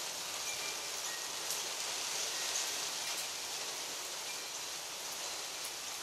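Steady rain, an even hiss with a few faint taps.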